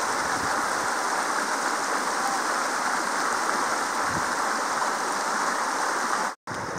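Steady rushing of a mountain stream, a constant even hiss of running water that cuts off suddenly near the end.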